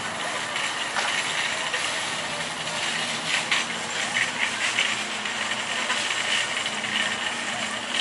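Steady outdoor noise with a low hum, overlaid by light rattling and clinking that thickens in the middle and again near the end.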